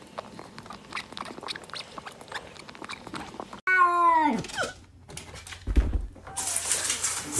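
A cat's loud meow, falling steeply in pitch, about halfway through, followed by a low thump about a second and a half later. Before it, soft rapid clicking as a kitten suckles at a milk bottle.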